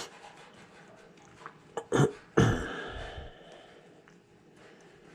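Handling noise from the cable pull: a knock at the start, two sharp knocks about two seconds in, then a louder knock followed by about a second of scraping rattle.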